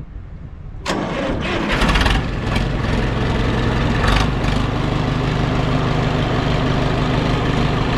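HMT 5911 tractor's three-cylinder diesel engine starting about a second in and then running steadily.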